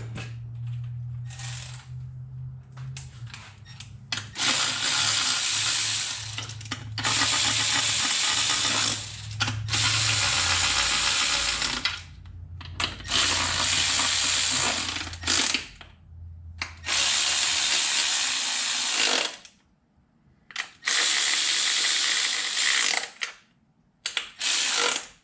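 Cordless electric ratchet spinning fasteners on the engine, run in about seven separate bursts of one to three seconds each, with short pauses between them.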